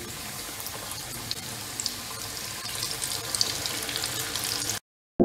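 Coated fish pieces deep-frying in hot oil: a steady sizzle with scattered crackling pops that grows louder as more pieces go into the pan, cutting off abruptly near the end.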